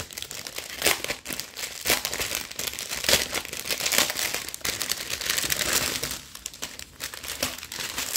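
Small plastic packets of diamond-painting rhinestones crinkling and rustling as they are handled, a dense run of crackles that thins out near the end.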